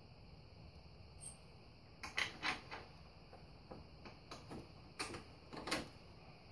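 Light clicks and knocks of hands fitting bracket and bolt parts at the front of an ATV. They come in two short clusters, about two seconds in and again about five seconds in, with a few faint ticks between.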